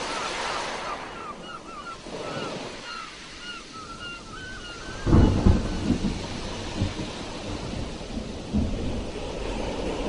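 Sea surf washing with a wave breaking heavily about halfway through, a sudden low rumble that then trails off. A run of short, repeated chirps sounds over the surf in the first half.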